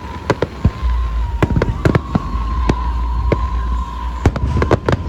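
Fireworks bursting overhead in quick, irregular succession: many sharp cracks and bangs over a deep rumble that builds from about a second in, with a thin steady high tone running underneath.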